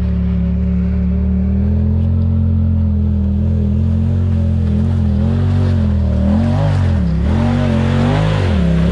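Side-by-side UTV engine running under way, steady at first, then the revs dip and pick up again several times in the second half, with tyre and wind noise growing alongside.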